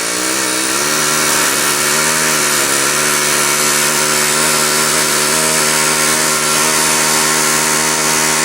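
Pneumatic rivet gun hammering without a break, setting a heated rivet into a concrete mixer's gear ring, with a steady hiss of exhaust air. The hammering speeds up in the first second, then holds a steady rate.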